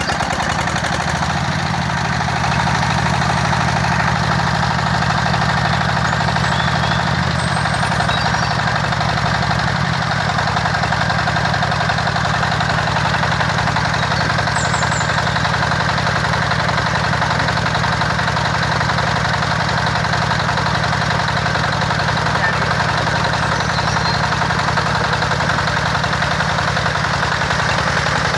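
Small water pump's engine running steadily with a low, even hum, its pitch shifting slightly for a moment about eight seconds in.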